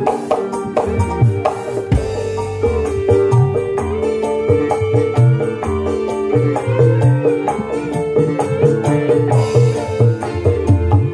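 Dangdut band music led by kendang, Javanese hand drums struck in quick, dense patterns, over a held melody note, played loud through the stage sound system.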